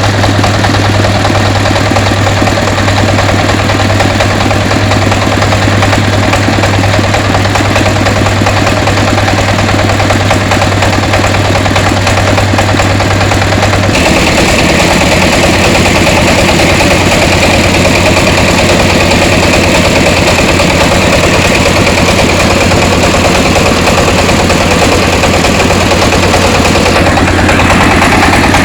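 Engine of a three-wheeled mobile rice huller running steadily and loudly. About halfway through its note drops slightly and a higher, hissing band joins it; that band shifts again near the end.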